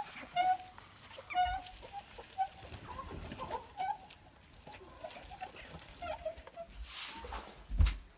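Domestic hens clucking in short, scattered calls, with a dull thump near the end.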